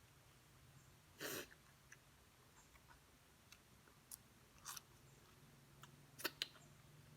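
Quiet eating sounds: a person chewing seafood papaya salad, with a few sharp mouth clicks and one brief louder noise about a second in.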